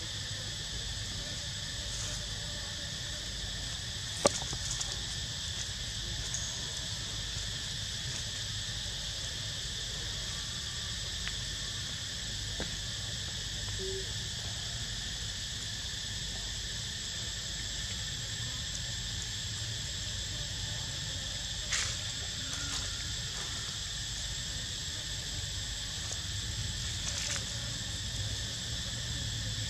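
Steady chorus of insects, a constant high buzz in several even layers that never lets up, over a low rumble. A sharp click about four seconds in and a smaller one around twenty-two seconds in stand out above it.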